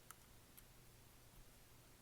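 Near silence, with one faint click right at the start and a fainter tick about half a second later, as a card is pushed back into the tablet's card slot.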